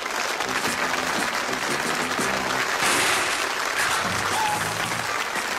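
Studio audience applauding over the closing theme music, the clapping swelling about halfway through.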